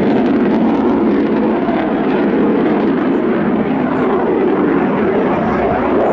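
Panavia Tornado's twin RB199 turbofan engines in flight: loud, steady jet noise with a deep rushing tone that holds level throughout as the jet banks through a turn.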